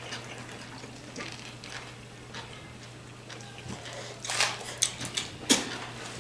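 Eating sounds: two people chewing sub sandwiches and handling their paper wrappers, over a steady low hum. A cluster of sharp clicks and crackles comes between about four and five and a half seconds in.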